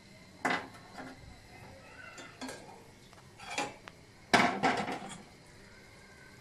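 Metal kitchenware clattering: a handful of separate knocks and clinks of steel bowl, pan and utensils, with the loudest cluster of several clinks about four and a half seconds in.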